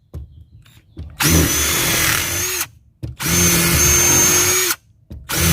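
Bauer 20-volt cordless impact driver running in three bursts of about a second and a half each, a steady motor whine that dips in pitch as each burst stops.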